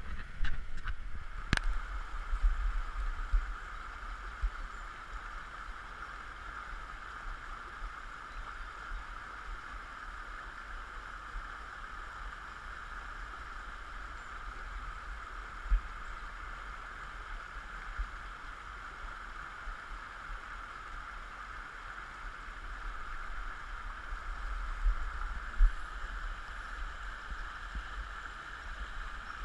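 Small stream running over stones and little cascades, a steady rush of water, with low thumps in the first few seconds and again near the end, and one sharp click about a second and a half in.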